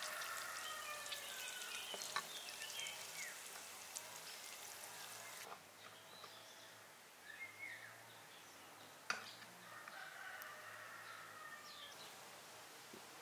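A rooster crowing twice in the background, one long falling call at the start and another about ten seconds in, with small bird chirps between. A frying hiss stops suddenly about five seconds in. Near the middle comes a sharp clink, the loudest sound, of cutlery against a glass dish.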